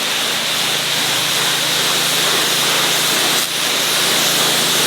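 Snapper 3100 PSI gas pressure washer spraying: a steady hiss of the high-pressure water jet over the even hum of its engine, briefly dipping about three and a half seconds in.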